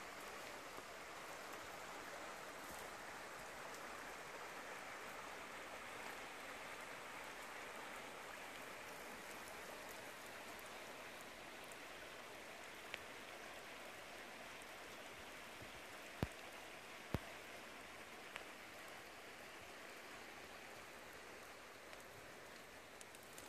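Wet snow falling through a snowy conifer forest, a steady soft pattering hiss, with a couple of faint sharp ticks about two-thirds of the way in.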